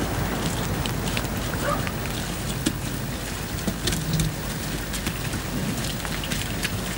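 Cattle walking on a cobbled lane, their hooves making scattered light clicks and knocks over a steady hiss.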